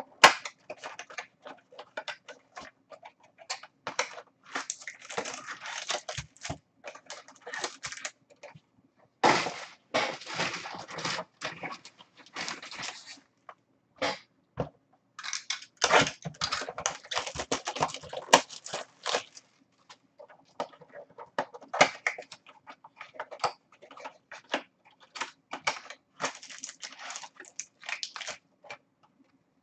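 Foil wrappers of 2016 Bowman's Best card packs crinkling and tearing as the packs are opened and the cards handled: irregular spells of crackling rustle with short pauses between, over a faint steady hum.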